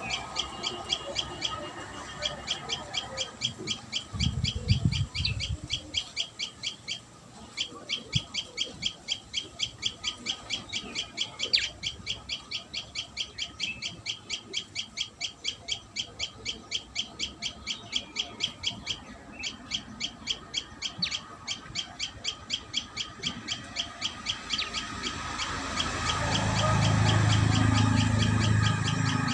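Common tailorbird chirping, short high notes repeated quickly at about four a second almost without a break. Near the end a louder low rumbling noise rises underneath.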